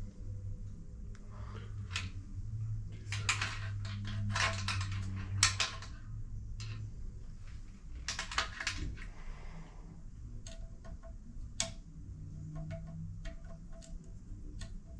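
Clusters of light metallic clicks and clinks from hand work at the timing end of a Triumph 1.5 engine, over a steady low hum.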